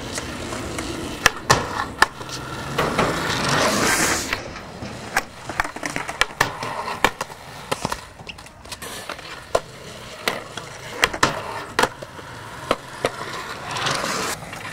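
Skateboard wheels rolling on concrete, swelling loudest a few seconds in and again near the end, with many sharp clacks of boards hitting the ground scattered throughout.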